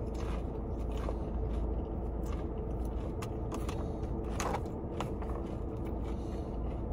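A person chewing a mouthful of food with her lips closed, soft wet clicks now and then, over a steady low hum inside a car.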